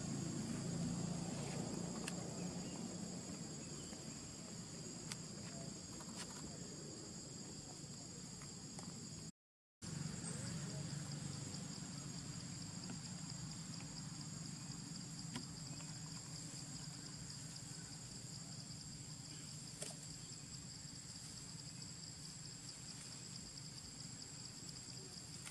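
Steady high-pitched drone of insects, two unchanging tones, over a low rumble of background noise; the sound cuts out completely for a split second about nine and a half seconds in.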